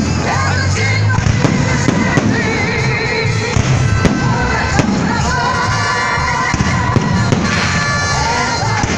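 Fireworks salute, shells bursting in a run of sharp bangs, over loud music.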